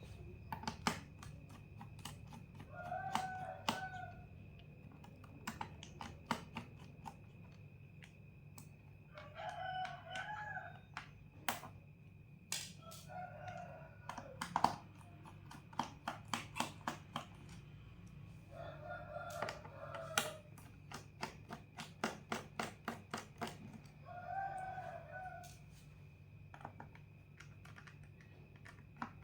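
A rooster crowing about five times, several seconds apart, over a steady thin whine and low hum. Many small sharp clicks and ticks, some in quick runs of several a second, from a screwdriver working the laptop's bottom-case screws loose.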